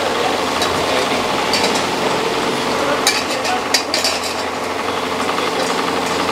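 Metal spatula stirring lemon chicken in bubbling tomato-butter gravy in an aluminium pot, scraping and clinking against the pot a few times over a steady simmering hiss.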